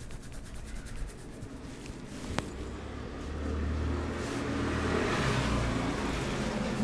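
A motor vehicle passing on the street, its engine hum and road noise building from about three seconds in and easing off near the end. A single sharp click about two and a half seconds in.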